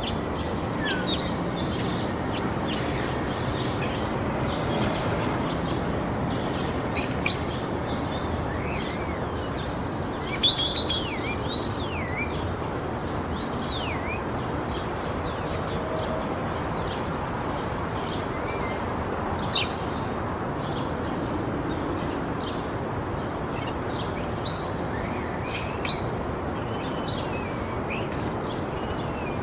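Residential daytime ambience: small birds chirping and twittering in short calls over a steady low traffic rumble.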